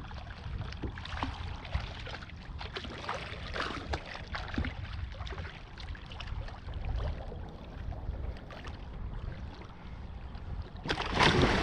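Water sloshing and splashing against a kayak at sea, with wind rumbling on the microphone and many small scattered splashes. A louder splash comes near the end, just before the angler reacts to the shark moving.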